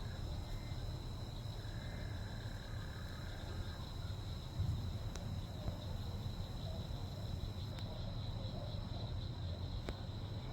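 Outdoor ambience of insects trilling steadily at a high pitch over a constant low rumble.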